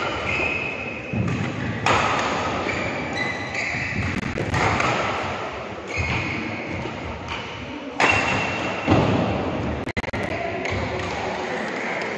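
Badminton rally echoing in a large hall: rackets striking the shuttlecock every second or two, with short squeaks of shoes on the court floor.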